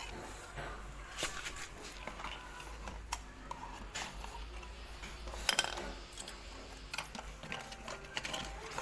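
Irregular metallic clinks and light knocks of hand tools and parts being handled, with the sharpest clink about five and a half seconds in.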